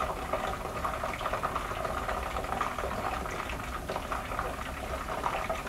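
A pot of tempura batter frying in hot oil, bubbling and crackling steadily.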